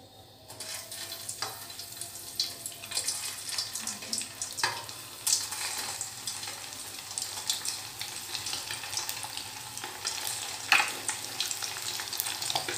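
Balls of egg 65 mixture deep-frying in hot oil in a steel kadai: a steady sizzle with scattered pops and crackles. It starts about half a second in, as the balls go into the oil.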